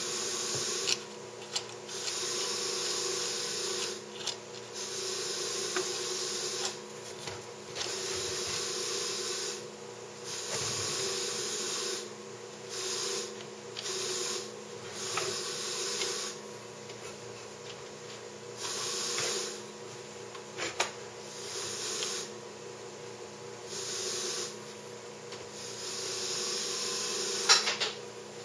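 Wooden carriage of a homemade printer frame pushed back and forth by hand on metal drawer slides: repeated rolling, hissing strokes, each a second or two long, over a steady low hum, with a few sharp knocks as parts bump.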